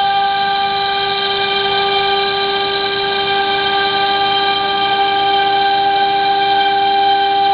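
The 3.2 kW water-cooled spindle of a CNC router running at high speed with its bit cutting 15 mm MDF. It makes a steady, high whine of several tones held together, over a light hiss.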